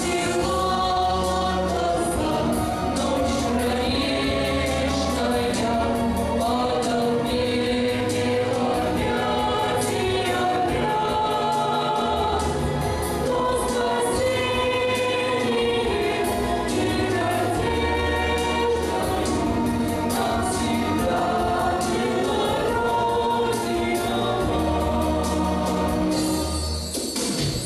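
A choir singing a slow song over instrumental accompaniment with a recurring bass line; the music dips briefly just before the end.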